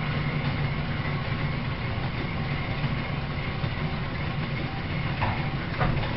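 Belt-driven Gray metal planer, over a century old, running with its table travelling under the tool: a steady mechanical rumble with a faint hum above it, and a couple of short knocks near the end.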